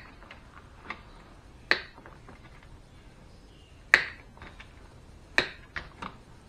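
Wire cutters snipping through thin thermostat wires: several sharp snips at uneven intervals, the loudest about four seconds in.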